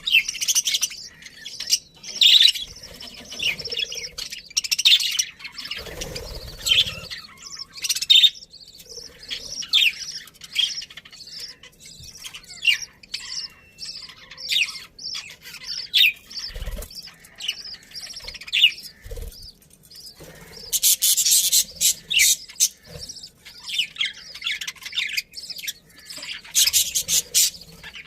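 A flock of budgerigars chirping continuously in short, overlapping calls, thickest about two-thirds of the way through and again near the end. A few low thumps come in between.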